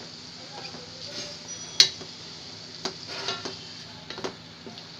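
Wooden spatula stirring and scraping minced beef with chopped onion around a stainless steel pot, knocking against the pot now and then, the sharpest knock a little under two seconds in. A faint steady sizzle runs underneath as the mince fries.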